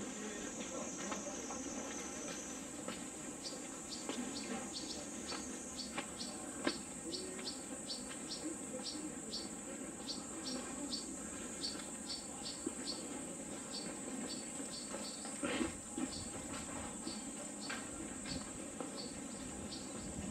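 Insects chorusing: a steady high-pitched drone, with a second insect call pulsing two or three times a second over it from a few seconds in until near the end.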